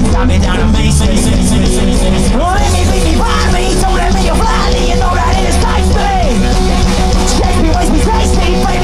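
Live punk rock band playing loud, with electric guitars, bass and drums, and a voice shouting or singing over it from about two and a half seconds in.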